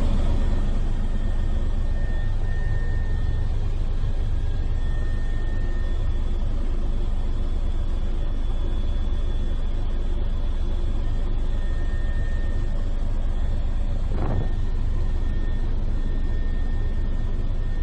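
Helicopter in flight: a steady deep rumble of engine and rotor with faint steady whine tones above it, and one brief falling glide in pitch near the end.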